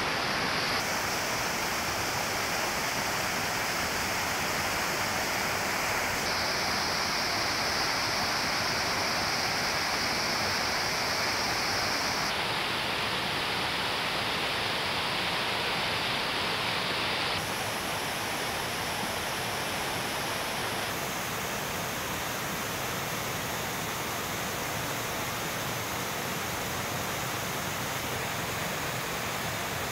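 Stream water rushing over boulders in white-water rapids, a steady dense rush that turns a little softer a bit past halfway.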